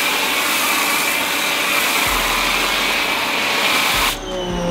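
Giraffe Tools Grandfalls electric pressure washer running a foam cannon: a steady, loud hiss of foam spraying under pressure, which cuts off suddenly about four seconds in.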